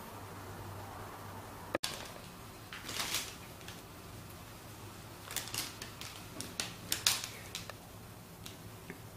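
Fabric cat tunnel rustling in short, irregular bursts as Siamese cats paw and move in and around it, over a low steady hum.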